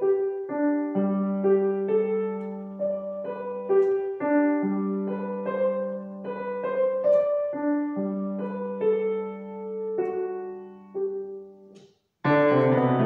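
Grand piano playing a sonatina: a melody of single notes over long held bass notes. A short break comes near the end, then a loud full chord.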